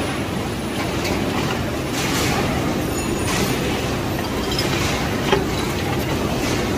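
Factory machinery running steadily: a loud, continuous low mechanical noise with a few faint clicks.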